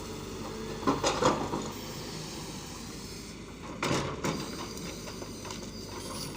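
A machine running with a steady hum, with clattering knocks about a second in and again around four seconds in.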